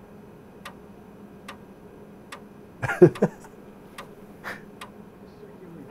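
Internal 3.5-inch floppy disk drive reading data: sharp, unevenly spaced clicks of the read head stepping across the disk, with one louder burst about three seconds in. It is loading more of the video file from the disk after the playback position was skipped ahead.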